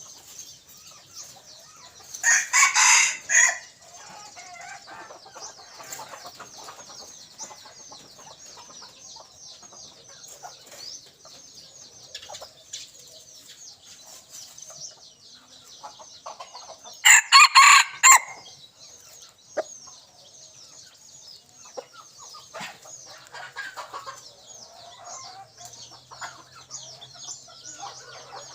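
A red junglefowl decoy rooster crowing twice, each a short clipped crow of about a second, the second about fifteen seconds after the first, with a continuous high chirring in the background.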